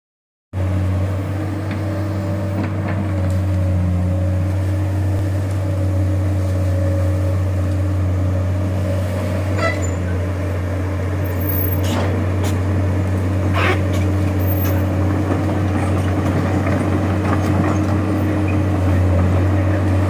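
Komatsu PC200 hydraulic excavator's diesel engine running steadily with a low, even drone and no revving. A few short sharp cracks or clanks come through around the middle.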